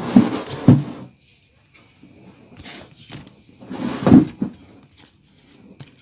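Stiff leather collar strips handled on a cardboard work surface: three short bursts of rustling and knocking, at the start, a little before the middle and around two-thirds through.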